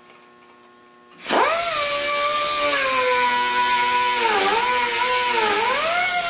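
Electric angle grinder spinning up about a second in and running loud, its whine sagging and dipping as it bites into the metal under load, then climbing again.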